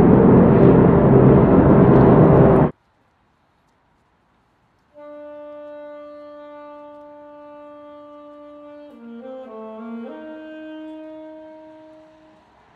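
A loud, steady rumbling noise cuts off abruptly about two and a half seconds in. After about two seconds of silence, a solo wind instrument begins slow music: one long held note, then a few changing notes, fading near the end.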